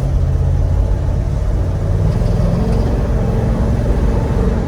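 1970 Chevrolet Monte Carlo's 454 big-block V8 running under way on the road, with a steady low engine note over road noise that rises slightly in pitch about two seconds in.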